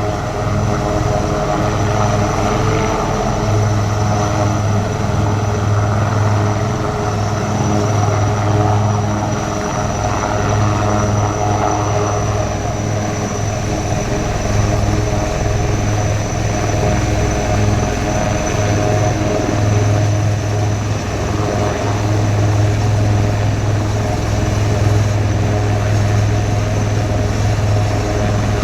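Indian Army helicopter running steadily: a continuous low drone with a thin, steady high-pitched whine above it.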